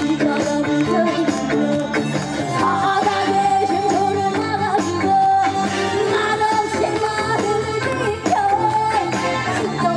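A woman singing a Korean trot song live into a handheld microphone over amplified backing music, with long held and bending notes.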